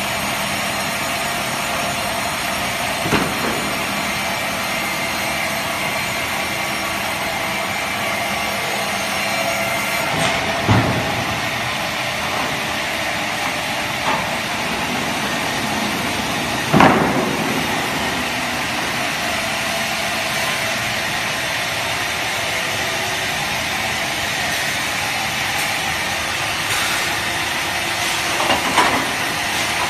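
Heavy woodworking band saw machine running with a steady mechanical drone and a faint whine. A handful of sharp knocks sound through it, the loudest about halfway through.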